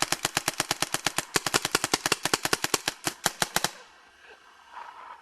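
E-MR1 electronic paintball gun firing a rapid, evenly spaced stream of shots, roughly ten a second, that stops suddenly between three and four seconds in.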